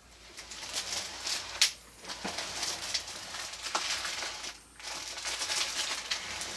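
Packing material rustling and crinkling in bursts while a heavy figure statue is handled, with a few sharp clicks and knocks, the loudest about one and a half seconds in.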